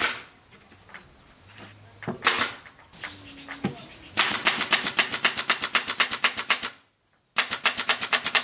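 Pneumatic nail gun driving nails into the edge of a wooden subwoofer box panel. A single shot at the start and another about two seconds in, then a rapid run of shots at about nine a second from about four seconds in, a short pause, and another fast run near the end.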